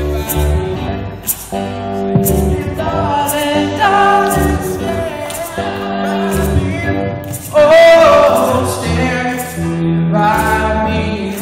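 Church choir singing, with the loudest held note about eight seconds in.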